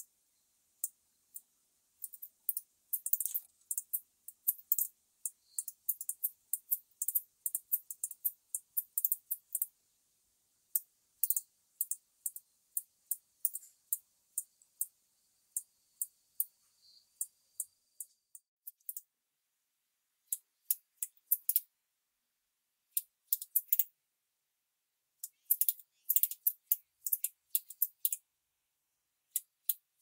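Male sickle-bearing bush-cricket (Phaneroptera falcata) calling: thin, hard-to-hear, very high-pitched ticks and short chirps ('chit', 'chijiji') given at random, in loose clusters with short pauses between them.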